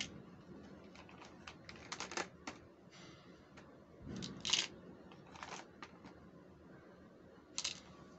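Small hard-plastic doll accessories, a toy hand mirror and round hairbrush, being handled and set down on a tabletop: a scattered series of light clicks and taps, the loudest about four and a half seconds in.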